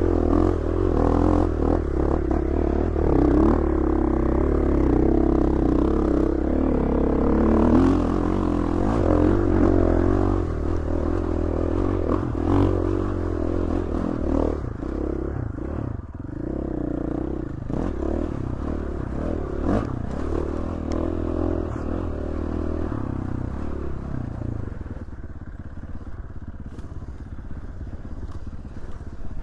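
Dirt bike engine running under way on a trail, with scraping and clattering from the bike over rough ground; it is louder in the first half and settles somewhat quieter after about fourteen seconds.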